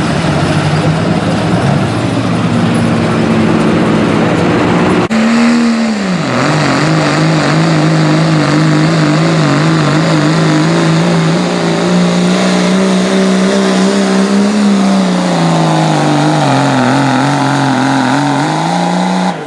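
Diesel 4WD pickup engines under full load pulling a weight-transfer sled. The first runs at a steady high note until a sudden cut about five seconds in; then a second truck's engine note drops hard as the sled bites, holds, sags again later in the pull and climbs back near the end.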